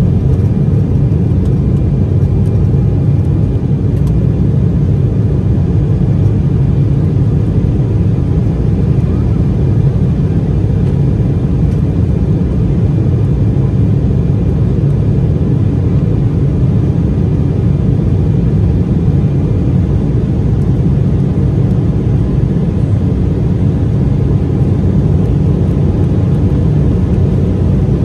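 Steady cabin noise inside an Embraer E190AR climbing after takeoff: the low drone of its GE CF34-10E turbofans mixed with the rush of airflow past the fuselage. A faint high whine sits on top and fades out about two-thirds of the way through.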